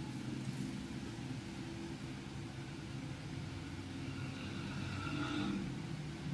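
A steady low mechanical rumble, as of a running motor or engine, with no clear start or stop.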